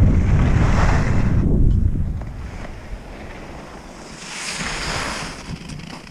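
Wind buffeting a helmet-mounted camera's microphone as a skier runs downhill. The rumble dies away about two seconds in. A hiss of skis sliding on packed snow swells around four to five seconds in as the skier slows to a stop.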